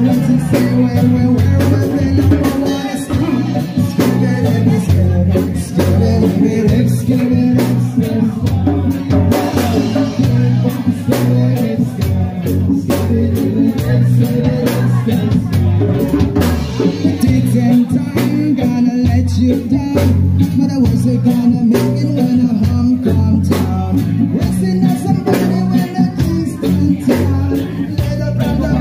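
Live amplified reggae band playing: electric guitar, keyboard and hand drum with a singer.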